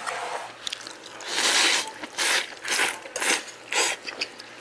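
A person slurping jjamppong noodles in a quick series of loud, hissing sucks, about two a second, starting about a second in.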